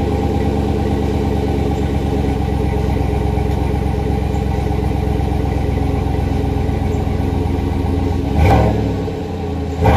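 2019 Chevrolet Silverado's 5.3-litre V8 idling steadily through a Black Widow Venom 250 aftermarket exhaust after a cold start. The engine is briefly revved about eight and a half seconds in, then settles back toward idle.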